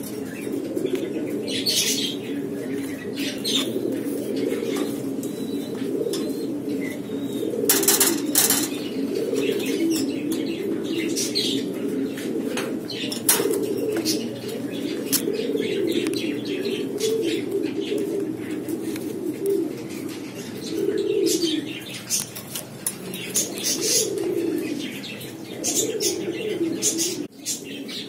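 Lahore pigeons cooing steadily, with a rolling, wavering coo throughout, broken by short sharp wing flaps and claps several times.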